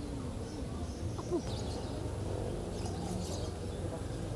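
Birds chirping faintly in short calls over a steady low rumble.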